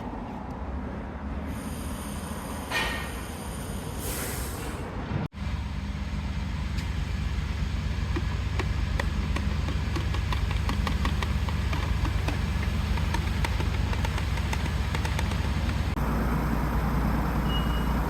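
Mercedes-Benz W465 G-Class with two short hisses in the first few seconds. After a cut it runs with a steady low drone and a fast ticking rattle over it.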